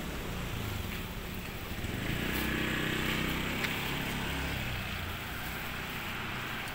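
A motor vehicle's engine passing along the street, growing louder about two seconds in and fading out again by about five seconds, over steady traffic noise.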